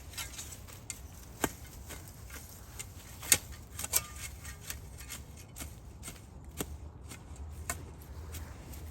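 Irregular sharp clicks, taps and scrapes of hand work in soil while digging out a garden bed, the loudest tap about three seconds in, over a low steady rumble.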